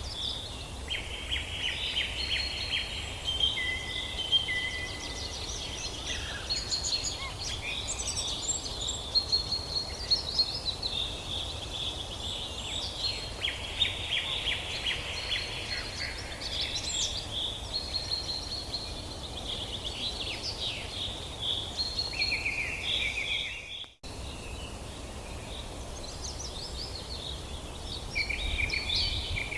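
Several songbirds singing and chirping at once, short trills and calls overlapping throughout, over a steady low background rumble. The sound cuts out for an instant about three quarters of the way through.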